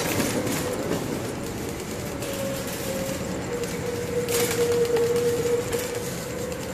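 Shopping cart rolling fast over concrete, its wheels rattling continuously with a steady whine running under it. The rattle grows louder twice, at about two and a half seconds in and again past four seconds.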